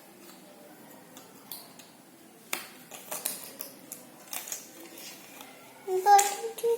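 Irregular light clicks and taps of jigsaw puzzle pieces being handled and set down, with a brief pitched voice sound about six seconds in.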